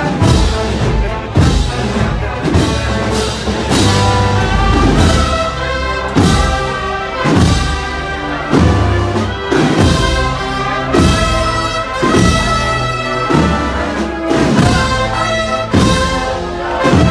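Brass band playing a slow processional march: held brass chords over a deep drum beat that falls about every second and a quarter.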